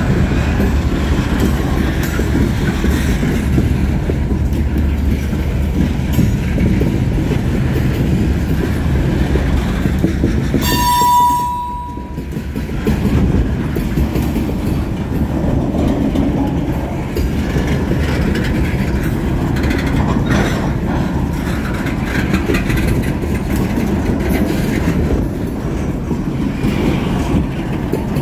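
Freight train covered hopper cars rolling past at close range: a steady rumble of steel wheels on the rails, with a short high squeal about eleven seconds in.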